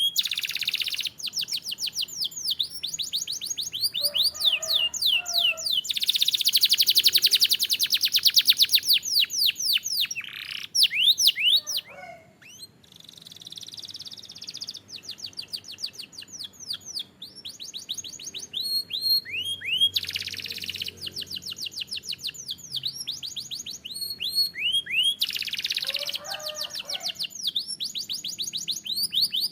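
Canary singing: long rolling trills made of rapidly repeated downward-sweeping notes, changing from one trill to the next, with a few lower warbled notes now and then and a brief pause about twelve seconds in.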